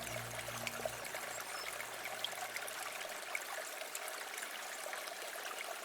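Quiet river flowing with a steady gentle rush and light trickling and plinking of water. Low ambient music tones fade out over the first couple of seconds.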